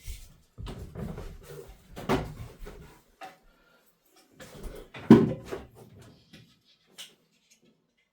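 Knocks, bumps and clatter of tools being handled and set against a wall, irregular rather than steady. The loudest is a thump about five seconds in.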